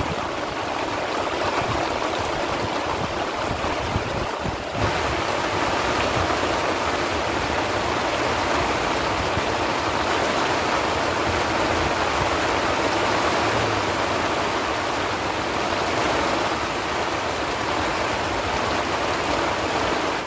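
Heavy rain pouring down onto the lake and grassy bank, a steady dense hiss that gets a little louder and brighter about five seconds in.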